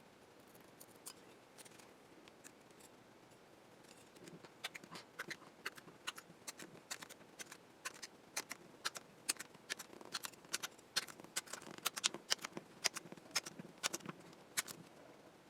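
Old adhesive polarizer film being peeled off the glass of an Epson HX-20's LCD. It gives faint, irregular small crackles and clicks that become frequent and louder from about four seconds in.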